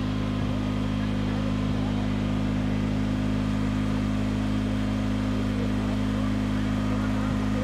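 An engine running steadily at one even speed, a constant low hum with a few overtones.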